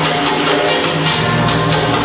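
Loud Albanian folk dance music with a steady drum beat; a low bass part comes in about a second in.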